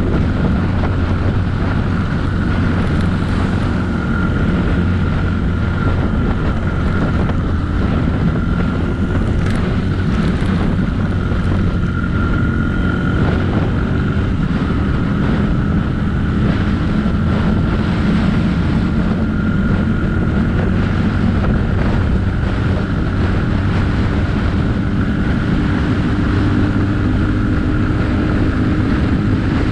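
Dirt bike engine running steadily at cruising speed on the road, with wind rushing over the microphone.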